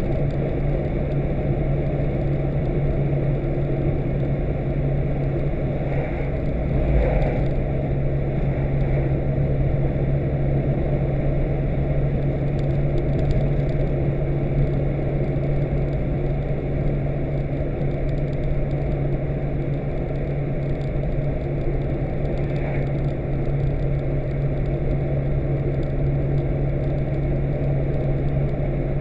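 Car being driven: a steady low engine drone with road noise.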